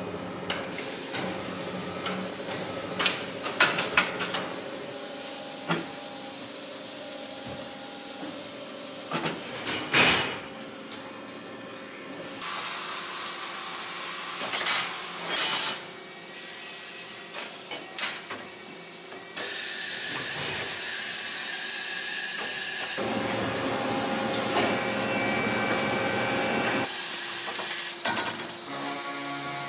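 Factory machine noise: a steady hiss and hum of running machinery, broken by sharp metallic clanks and knocks of carbon-steel bar stock being handled and cut. The loudest clank comes about ten seconds in.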